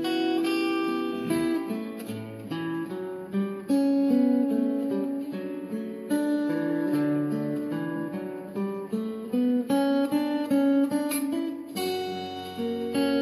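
Acoustic guitar playing an instrumental tune, picked melody notes over plucked chords, from a guitarist's recording.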